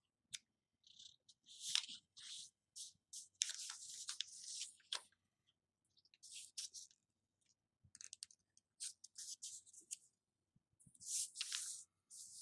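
Origami paper being folded and creased by hand: faint, irregular rustling and crinkling in short scattered bursts as a corner is folded to the centre crease and pressed flat.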